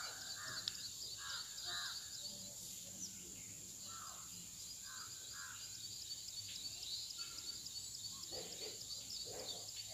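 Crows cawing now and then, often in pairs, over a steady high hiss of outdoor background noise.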